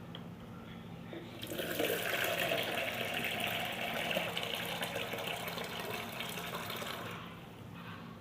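Water running hard from a tap, starting about a second and a half in and dropping off near the end.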